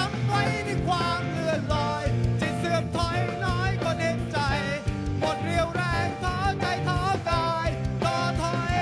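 A live rock band: a male lead singer sings over electric guitars, bass and a steady drum beat.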